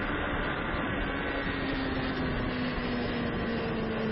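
Onboard sound of a racing motorcycle at speed: a steady engine note whose pitch falls slowly, under heavy wind and road rush.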